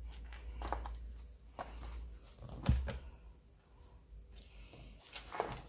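Handling noises from card-making at a cutting mat: paper sliding and light taps as a stamped card panel and a sponge ink-blending tool are picked up and moved, with one dull knock about two and a half seconds in, over a low steady hum.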